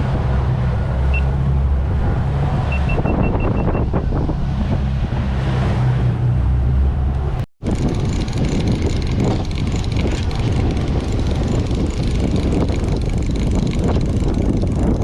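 Boat engine running steadily with wind and water noise. The sound cuts out for a moment about seven and a half seconds in and comes back as a rougher, noisier wash.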